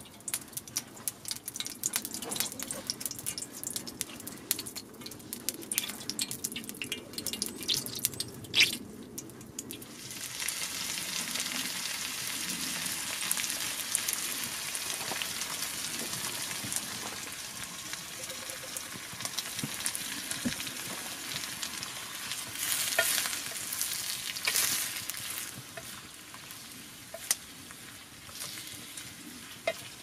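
Mushrooms and onions frying in oil in a stainless steel pan over a campfire. Scattered crackling and popping for about the first ten seconds, then a steady sizzle sets in and carries on, with a few scrapes of stirring in the pan.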